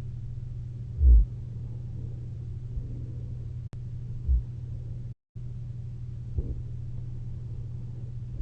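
A person wearing a CPAP mask snoring while asleep on their back: short, low snores, the loudest about a second in and two weaker ones a few seconds apart, over a steady low hum. A single sharp click falls near the middle.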